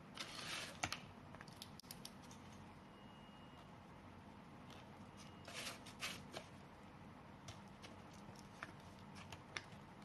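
Faint handling noise of a power cord and small plastic switch parts: soft rustles and scattered light clicks, with two brief louder rustles, one just after the start and one about five and a half seconds in.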